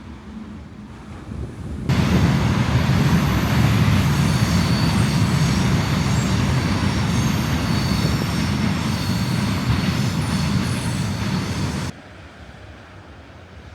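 A train passing close by: a loud rumble with thin high-pitched wheel squeals over it. It starts suddenly about two seconds in and cuts off about ten seconds later.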